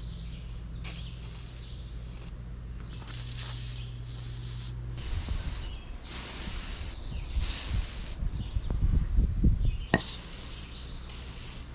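Aerosol can of AeroKroil penetrating oil spraying in about ten short hissing bursts, the longest about a second, to soak rusted threaded fittings and line clamps so they can be loosened.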